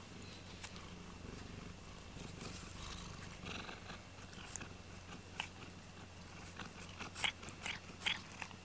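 A cat purring steadily while being stroked under the chin and on the head, with a few light, sharp clicks near the end.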